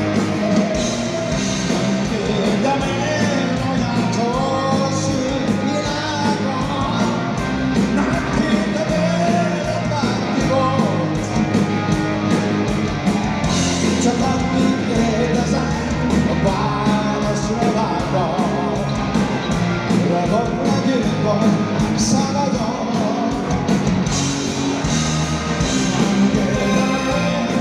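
Hard rock band playing live through a PA at a sound check: distorted electric guitar, bass and drums, with a singer's voice over them.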